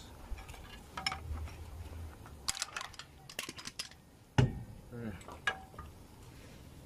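Metal parts of a car's rear strut assembly clinking and knocking as they are handled and taken apart: a scatter of light clinks, a quick run of them near the middle, then one heavier knock.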